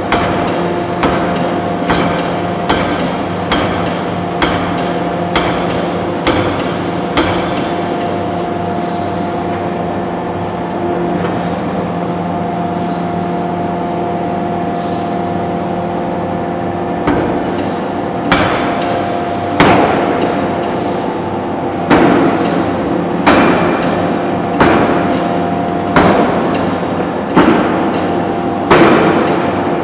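Hydraulic open-die forging hammer striking a red-hot anchor chain forging blank in repeated heavy blows, about one a second, over a steady machine hum. The blows stop for several seconds midway, then resume harder and slightly slower.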